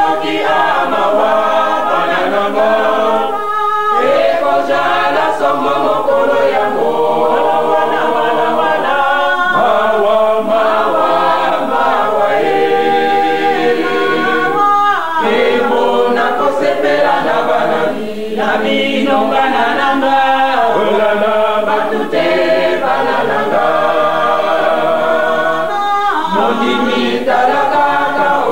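A choir singing a hymn unaccompanied, many voices in harmony in phrases with short breaths between them. The sound is dull and lacks treble, as from an old cassette recording.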